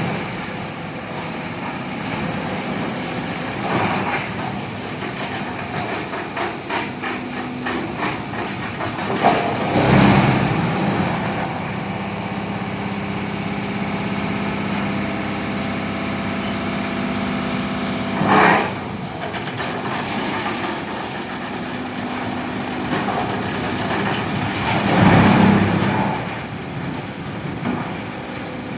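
Tub grinder running: a steady machine drone with a clattering stretch, and loud noisy surges about ten, eighteen and twenty-five seconds in as material is ground.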